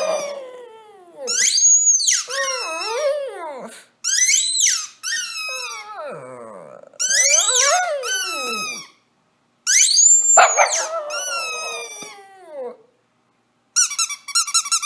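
A Shih Tzu howling along to a squeezed squeaky toy. Four times, a high squeak sets off a long wavering howl that falls in pitch. Near the end comes a quick run of short squeaks.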